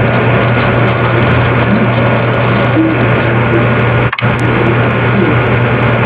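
A loud, steady drone: a constant low hum under a dense, noisy wash, cutting out for a split second about four seconds in.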